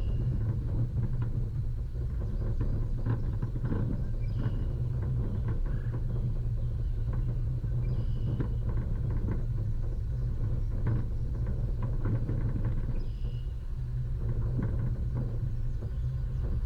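Off-road vehicle driving over a rough dirt track: a steady low rumble with scattered knocks and rattles.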